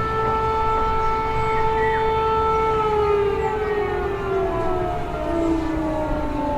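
Siren sounding one steady tone, whose pitch falls slowly from about halfway through.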